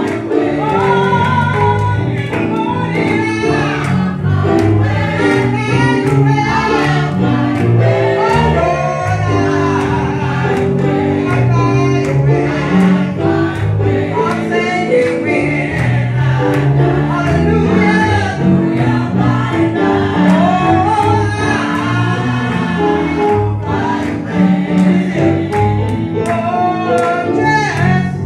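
A small group of women singing a gospel song together, with instrumental backing and a steady beat underneath.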